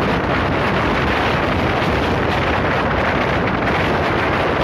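Steady rushing noise of the Jan Shatabdi Express passenger train running over a river bridge, heard from an open coach door, with wind buffeting the microphone.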